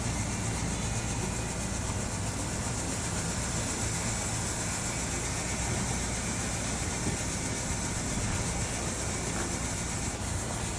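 Steady outdoor stadium background noise: a low rumble under a steady high hiss, with no distinct events.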